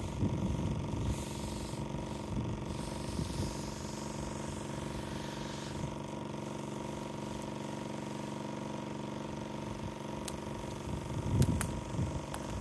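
Electric pressure washer's motor and pump running with a steady hum. A few sharp clicks and some louder rustling come near the end.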